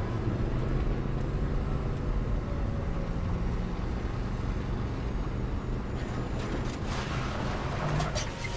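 Steady low engine and drive rumble of an armoured rover, heard from inside its cabin as it drives, with a few clanks and rattles in the last couple of seconds.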